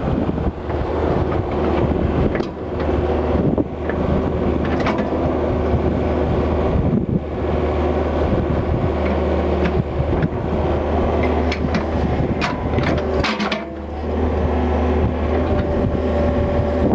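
Yanmar 50 mini excavator's diesel engine running steadily, with sharp metallic clanks and rattles over it, a quick run of them a little past the middle; the rattling is the loose quick coupler on the arm.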